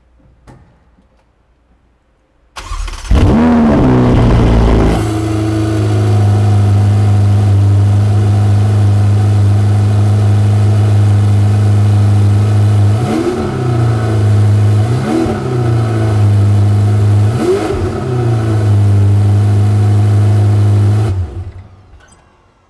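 Ferrari sports-car engine cranked and firing up with a quick flare of revs, then settling into a steady idle. It is blipped three times in short, rising-and-falling revs, then switched off.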